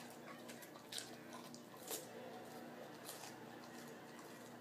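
Dog chewing a stick of raw celery: a few faint, wet crunches, the clearest about one, two and three seconds in.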